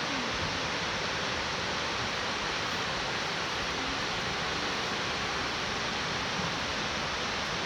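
Waterfall rushing: a steady, even roar of falling water that holds at one level throughout.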